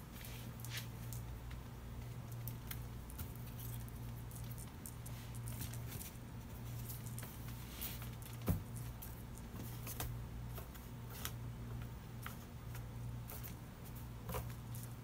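Steady low room hum with scattered faint ticks and small rustles, and one short knock about eight and a half seconds in.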